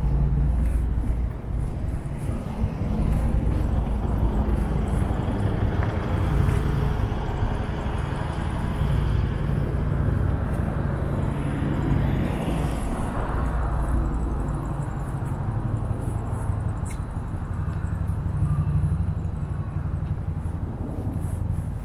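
City street ambience: a steady rumble of road traffic, with a vehicle going past about halfway through.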